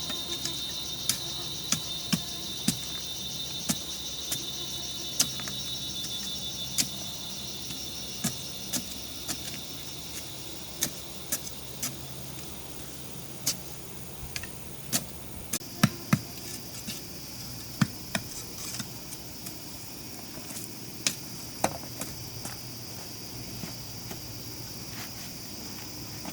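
Irregular sharp knocks of hand tools striking wood, roughly one or two a second, over the steady high chirring of insects.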